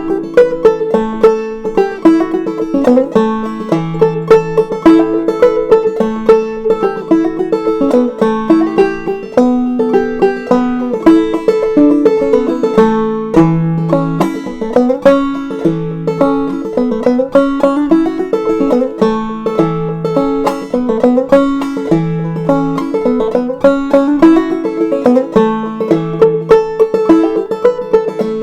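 Banjo played clawhammer style, a crooked tune picked at a lively even pace with one high note sounding again and again through the melody.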